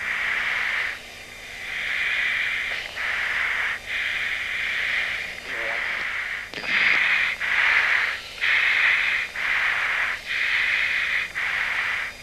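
Breathing into an F-15 crew member's oxygen-mask microphone on the hot intercom: a hiss about a second long with each breath, one after another with short gaps, over a faint steady hum.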